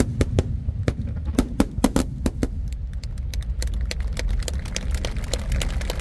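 Aerial fireworks bursting overhead: an irregular run of sharp bangs and pops, turning after about three seconds into a dense crackle of many small, quick pops, over a steady low rumble.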